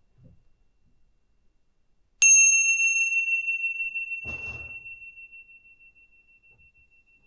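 Small meditation bell struck once about two seconds in, ringing at one clear high pitch and fading slowly over several seconds.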